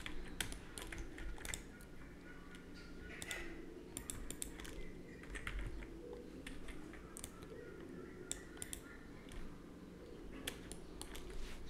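Faint computer keyboard and mouse clicks, scattered and irregular, over a low steady hum.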